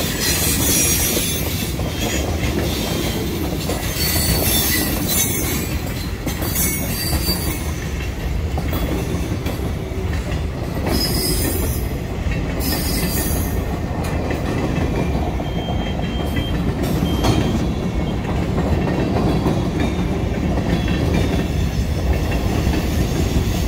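Freight cars of a long mixed freight train rolling past: a steady rumble of steel wheels on the rails, with high-pitched wheel squeals coming and going.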